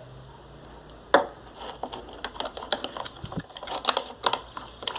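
A spoon mixing glue and pink colorant in a plastic pot, making irregular small clicks and taps, with a sharper knock about a second in.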